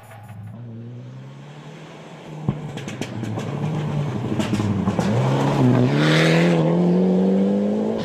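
Mitsubishi Lancer Evolution rally car approaching at speed on gravel, its engine note climbing as it accelerates and growing louder as it closes in, with a brief dip in pitch for a gear change a little past two-thirds of the way through.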